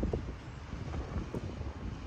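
Wind buffeting the camera microphone in uneven gusts, a low rushing noise.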